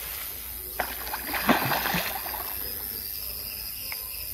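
Hooked redtail catfish (pirarara) thrashing at the surface of the pond, a quick run of splashes about a second in, then the water settles.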